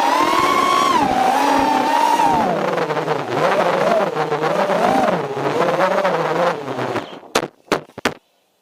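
FPV racing drone's brushless motors and propellers whining, the pitch rising and falling with the throttle, then dying away about seven seconds in, followed by three sharp knocks near the end.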